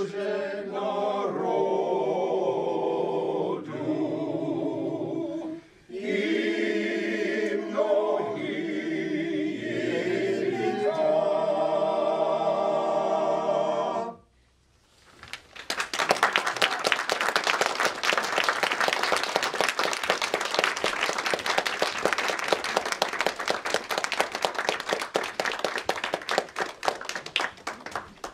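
A small group of men singing a cappella, with a brief break about six seconds in; the song ends about halfway through, and after a moment's pause the audience applauds until the end.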